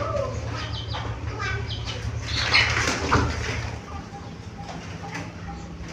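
Zebra dove (perkutut) and other cage birds: chirping calls in the first half and a brief louder flutter about two and a half seconds in, then a run of short, evenly repeated low coo notes.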